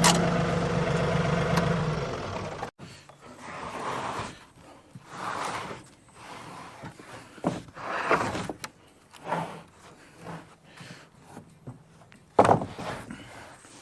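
An engine idling steadily, which cuts off abruptly a little under three seconds in. After it come scattered knocks and rustles, with a few sharper knocks.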